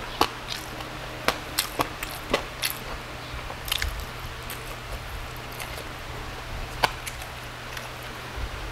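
Close-up chewing and crunching of crispy lechon liempo pork skin. Sharp crackles come several times a second for the first few seconds, then only now and then.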